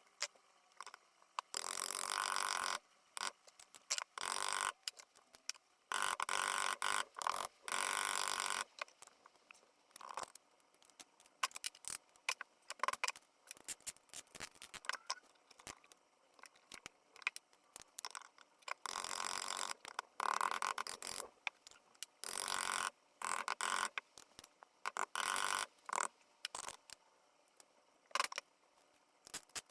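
Time-lapsed workshop sounds of ringed pistons being fitted through a ring compressor into an engine's cylinders: rapid clicks, metal clinks and scraping in short, abruptly cut bursts.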